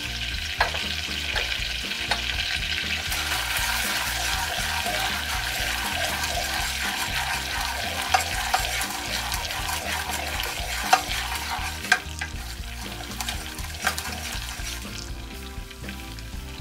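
Salted butter and water boiling and sizzling in a saucepan with sugar and salt, stirred with a wooden spoon. A few sharp knocks of the spoon against the pan come now and then.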